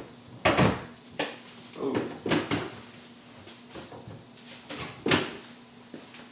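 A series of separate knocks and clunks of kitchen things being handled, like a drawer or cupboard being opened and shut. The loudest come about half a second in and about five seconds in.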